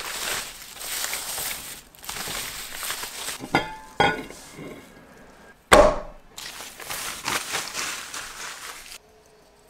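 Paper wrapping crinkling and rustling as a package of raw meat is unwrapped. Around the middle a stainless steel bowl clinks and rings twice against the wooden table, followed shortly by a single heavy thump, the loudest sound, then more paper rustling that stops suddenly near the end.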